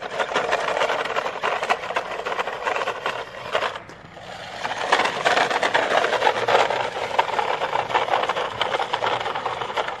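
Toy RC monster truck driving over loose gravel: its small electric motor and gears whir under a dense crackle and rattle of tyres on stones, easing off briefly about four seconds in.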